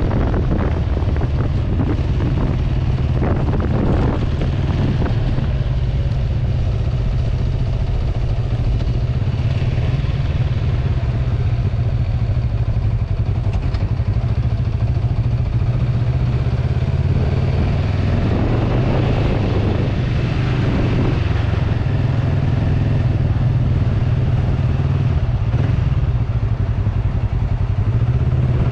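Kawasaki Vulcan 500's parallel-twin engine running steadily as the bike is ridden, heard close up from the handlebars, with wind rushing over the microphone in the first few seconds.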